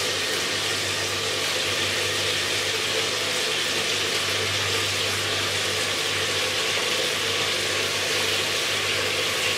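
Beef frying in oil in an aluminium pressure cooker pot: a steady sizzle, with a low steady hum underneath.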